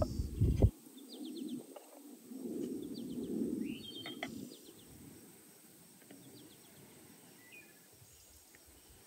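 Wild birds chirping and singing over a low rumble that cuts off sharply under a second in and swells again briefly around three seconds. A few light clicks of a metal spatula on a clay plate as a slice of casserole is served.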